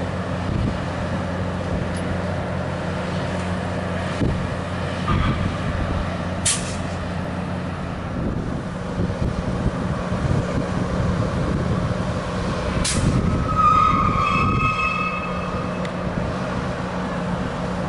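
A stabled rail-grinding train's diesel engines idling with a steady low hum. Two short, sharp air hisses come about six and thirteen seconds in, the second followed by a brief whistling squeal.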